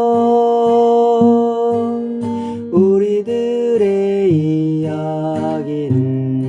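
A woman singing a slow Korean folk song to acoustic guitar. She holds one long note, then starts the next line about three seconds in, over plucked guitar chords.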